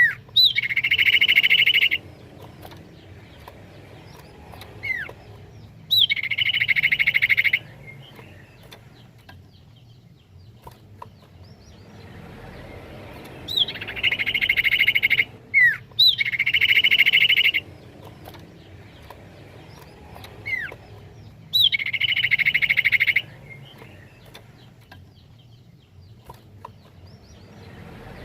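Common iora (cipoh) song: short falling whistled notes and fast, ringing trills about a second and a half long, repeated five times.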